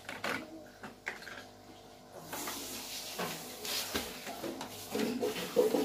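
Small plastic toy pots and utensils clicking and knocking as they are handled on a toy kitchen stove, with a steady hiss from about two seconds in.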